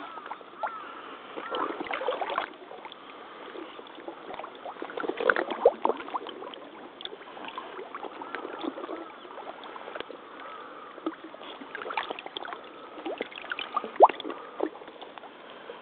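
Muddy water sloshing and splashing around rubber waders as the wearer wades step by step through a shallow flooded pond, in irregular bursts. A sharp splash near the end is the loudest.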